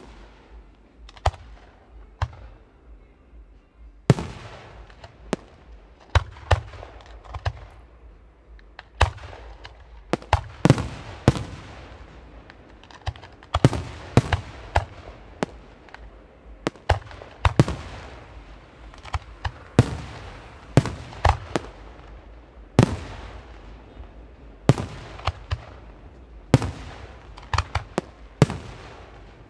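Aerial firework shells bursting in a display, a string of sharp bangs, each trailing off in echo. A few scattered bangs come first, then from about four seconds in they follow thick and fast in an irregular volley.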